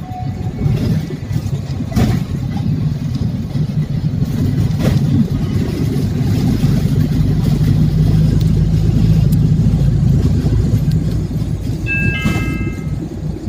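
City bus running along a street, heard from inside the cabin: a steady low engine drone with road noise and a couple of knocks. A brief high beep sounds near the end.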